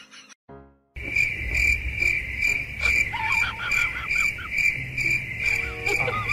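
Crickets chirping steadily, about two or three chirps a second, starting about a second in: the stock 'awkward silence' crickets sound effect laid over the clip.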